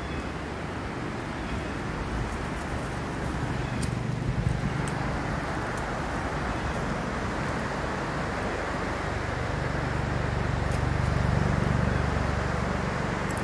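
Steady rushing roar of the Niagara River's rapids, with a low rumble that swells twice.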